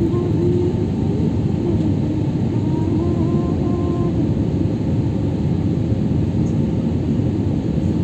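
Steady roar inside a jet airliner's cabin on approach: engine and airflow noise, low and even throughout.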